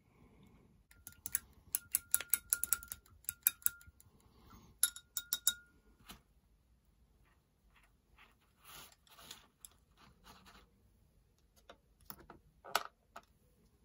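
Quick runs of light clicks and clinks from painting tools handled at the desk, many with a short ringing note after them. Soft rustling follows, then a few more clicks near the end.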